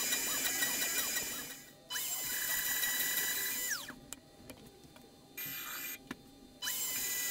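CNC router milling plywood: the spindle motor runs at a steady high pitch while the stepper motors whine, their pitch sliding up and down as the bit moves. The sound drops away abruptly twice, for about half a second and then for about two and a half seconds, before resuming.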